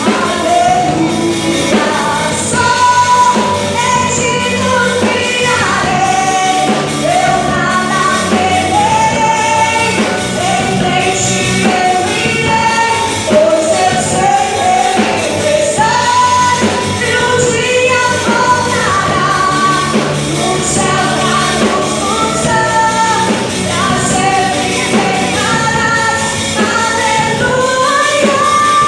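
Female lead vocalist singing a gospel worship song, backed by a band of acoustic guitar, keyboard, electric guitar, bass and drums.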